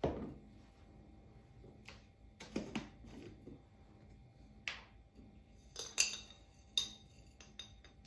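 A glass jar of instant coffee set down on a table with a thump. Its lid is twisted off and put down, and a spoon clinks several times against the glass jar, each clink ringing briefly.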